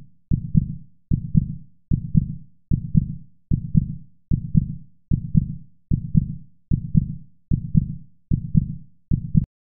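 Heartbeat sound effect marking a quiz countdown timer: a low double thump about every 0.8 seconds, about a dozen beats, stopping shortly before the end.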